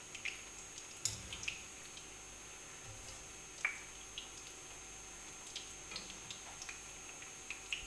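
Egg pakoras deep-frying in hot ghee in a karahi: a faint steady sizzle with scattered sharp pops and ticks while a wire skimmer turns them.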